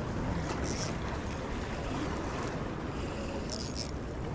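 Steady wind rumble on the microphone with sea waves washing against the rocks. Two short high hissing bursts come through, about half a second and three and a half seconds in.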